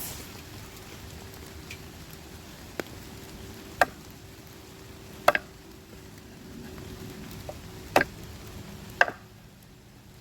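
Steady rain patter, broken by about five sharp, irregular knocks or taps; the rain sound falls away near the end.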